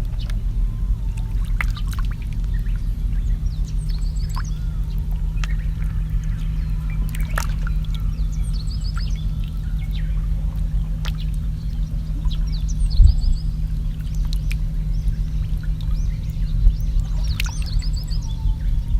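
Small birds chirping in short repeated trills over trickling, lapping water and a steady low rumble, with a few sharp clicks and splashes.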